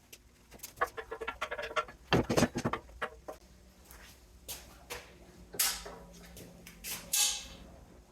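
Scattered clinks, scrapes and rattles of metal as a cooling unit's copper-and-brass radiator is pulled apart by hand for scrap, with sharp knocks about two, five and a half, and seven seconds in.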